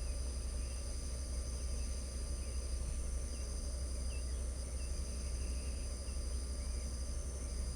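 Crickets trilling steadily in several high pitches, one of them breaking off briefly and resuming. Faint scattered bird chirps sound over a steady low rumble.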